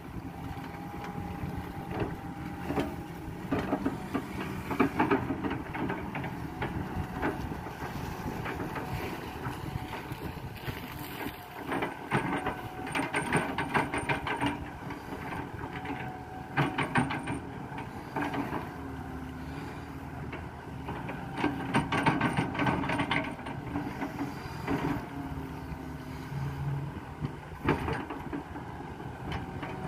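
Kato hydraulic crawler excavator's diesel engine running steadily while it digs and places mud. Several bursts of clanking and knocking come from the bucket and boom linkage as it works.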